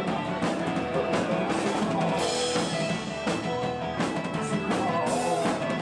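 Rock band music with a steady drum-kit beat under sustained melodic notes.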